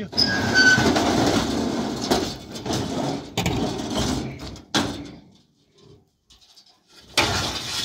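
A stiff sheet dragged and scraped across a pickup truck's tailgate and bed: a long rasping scrape with a few short squeaks at the start and a sharp knock about five seconds in, then a brief second scrape near the end.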